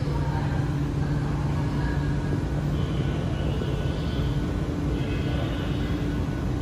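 Steady low hum and air noise inside a Shenzhen Metro Line 20 driverless train car standing at a station with its doors open.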